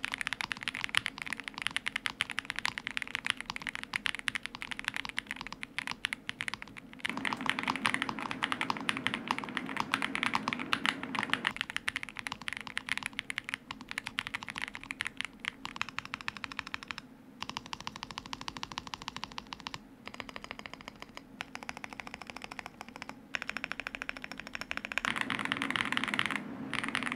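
Continuous fast typing on a NuPhy Gem80 mechanical keyboard with a POM plate and no PE foam, fitted with factory-lubed Lemon tactile switches and MSA-profile PBT keycaps. A dense run of keystroke clicks, with a more balanced sound.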